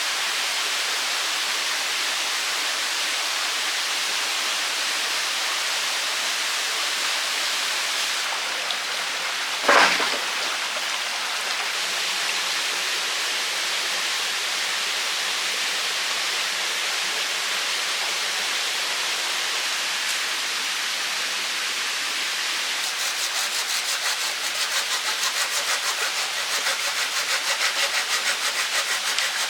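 Steady rush of running water, with a single sharp knock about ten seconds in. Near the end, rhythmic rasping strokes, about two a second, of wood being sawn by hand.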